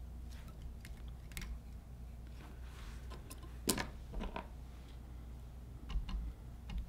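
Faint, scattered clicks and ticks of fly-tying tools and thread being handled at the vise while a dubbing loop is tied in, the louder ones a little past halfway and near the end.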